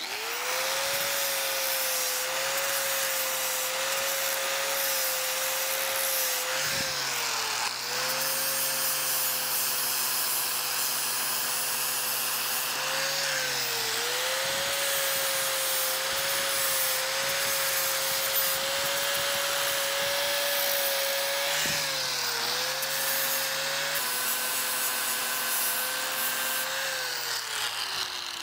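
Angle grinder with a flap disc grinding the fish-mouth cut in the end of a steel tube, to clean it up so the new tube fits. The motor runs at a steady pitch over a grinding hiss and dips briefly three times. It winds down near the end.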